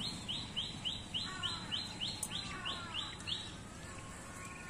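A bird calling: a run of about eleven short, high, upward-sweeping notes, about three a second, that stops after about three and a half seconds, with a lower call from another bird twice in between.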